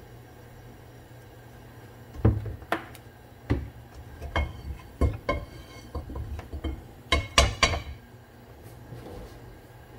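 Kitchenware clattering: dishes, pots and utensils knocked and clinked together in a string of sharp hits, with a quick burst of clinks near the end, over a steady low hum.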